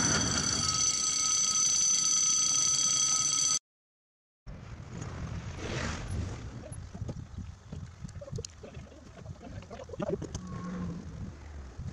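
A steady chord of held tones cuts off abruptly after about three and a half seconds, and a second of silence follows. Then a low, uneven rumble of road traffic at an open level crossing, as a van drives over the crossing.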